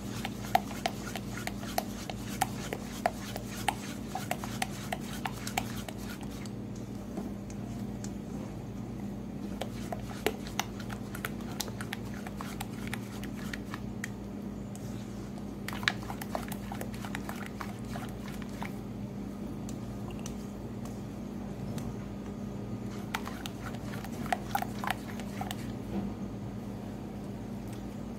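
Silicone spatula stirring a thick creamy dressing in a stainless steel bowl, with scattered scrapes and clicks against the metal, thickest in the first few seconds and again a couple of times later. A steady low hum runs underneath.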